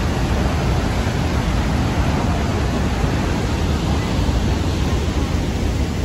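Rhine Falls, a large waterfall on the Rhine: a steady, loud rush of falling water with no let-up.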